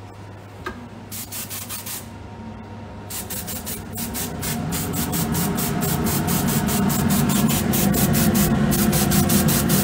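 Handheld chocolate spray gun spraying a velvet finish onto frozen chocolates: a short burst of spray about a second in, then steady spraying from about three seconds with a rapid flutter and a hum that rises in pitch, growing louder.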